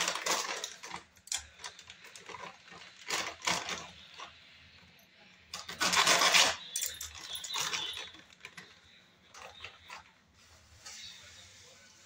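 Plastic food packet crinkling in the hands as it is handled and torn open, in several short rustling bursts. The longest and loudest comes just before six seconds in.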